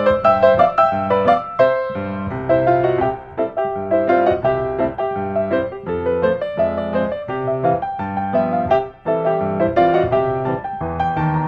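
Background piano music: a continuous run of struck notes.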